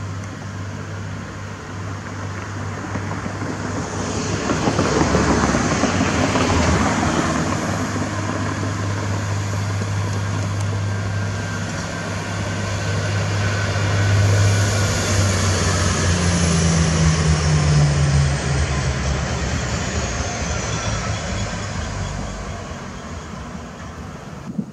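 Electric train passing with a locomotive and freight wagons, giving a steady low electric hum and the rush of wheels and wagons on the rails. A high whine falls in pitch about two-thirds of the way through.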